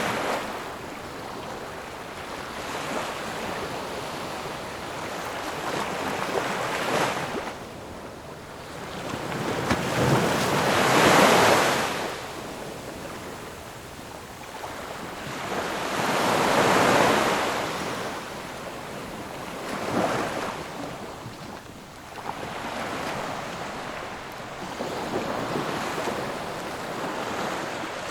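Ocean surf: waves rolling in and washing back in slow swells of rushing noise, one every several seconds, the loudest about eleven and seventeen seconds in.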